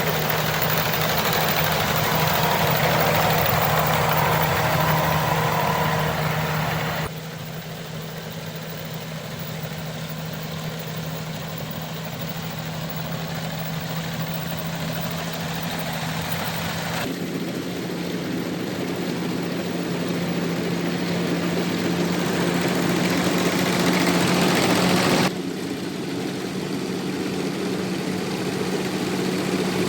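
Rice combine harvester running, a steady engine drone under broad mechanical noise. The sound changes abruptly three times, as the shots cut between machines or positions.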